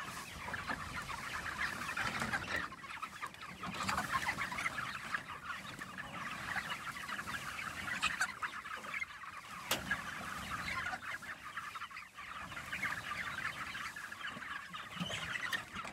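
A flock of young white broiler chickens clucking and chattering steadily inside their pen, with a sharp click about ten seconds in.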